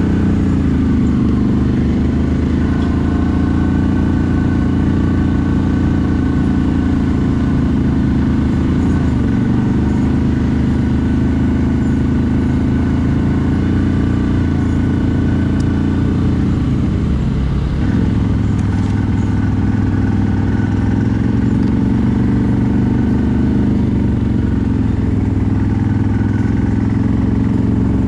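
CFMoto 1000 ATV's V-twin engine running steadily, its pitch dipping briefly twice.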